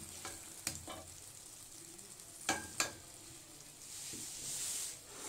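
Wooden spoon scooping cooked potatoes and fenugreek leaves out of a steel pot, with a few sharp taps of the spoon against the pot and a brief soft hiss near the end.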